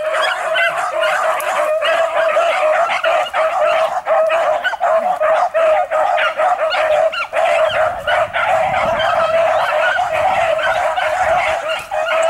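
A pack of beagles baying and yipping without pause in overlapping voices, the cry of hounds running a rabbit's trail.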